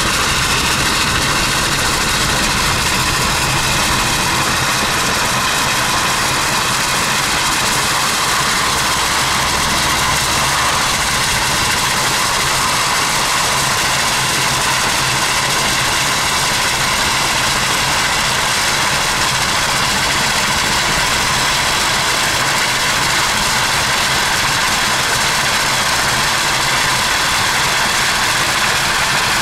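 Steady rush of wind and tyre noise from a car driving at speed, heard from inside the car, with no clear beat or tone standing out.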